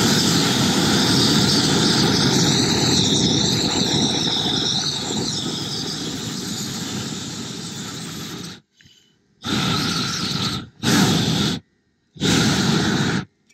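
Propane roofing torch burning with a steady rushing hiss as it heats torch-down modified bitumen membrane. A wavering high whistle rides over it for a few seconds. Near the end it cuts out and comes back in three short stretches.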